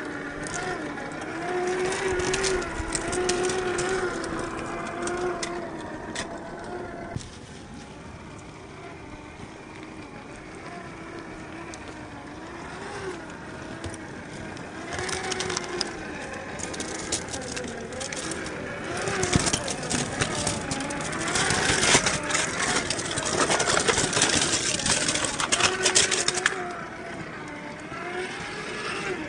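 Traxxas TRX-4 RC crawler's electric motor and gearbox whining, the pitch rising and falling with the throttle, over crunching and crackling from the tyres on ice and rock. The crunching grows louder and denser in the second half.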